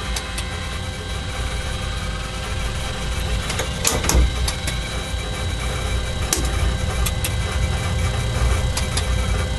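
Simulated Caravelle III jet engine running up during a start in the cockpit, a steady rumble growing slowly louder as the engine spools up. Scattered sharp clicks sound over it, typical of the fuel-used counter ticking once per kilogram of fuel burned.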